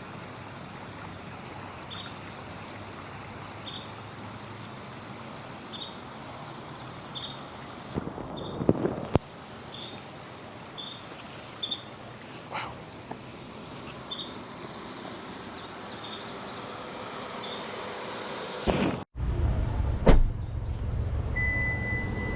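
Summer insects droning steadily at a high pitch over an even hiss, with short chirps about once a second. After a sudden break about nineteen seconds in, a louder low rumble takes over.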